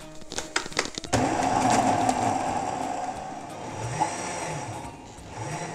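A countertop jug blender gives a few clicks and knocks as the lid goes on. About a second in it is switched on and runs, chopping chunks of fruit, greens and water into a smoothie. The whir is loudest at the start and grows gradually quieter.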